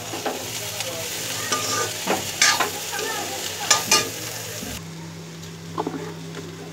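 Sliced bitter gourd and onion sizzling in oil in a metal kadai while a metal spoon stirs them, with several sharp clinks and scrapes of the spoon against the pan. The sizzle cuts off abruptly about three-quarters of the way in, leaving a low steady hum with a few light clicks.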